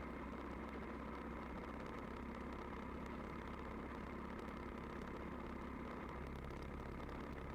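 Royal Enfield Bullet's single-cylinder motorcycle engine running at a steady, even pitch, with a low drone.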